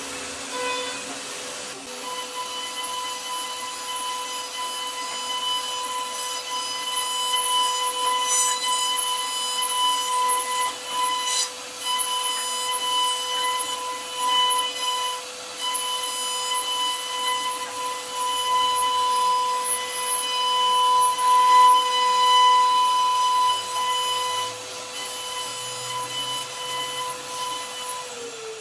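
CNC router spindle running with a steady high whine while its bit carves a wooden door panel, the rasping of the cut wood rising and falling as the bit works.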